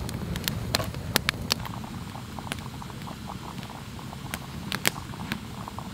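Small campfire of thin dry sticks crackling, with irregular sharp pops over a low steady rumble of the flames.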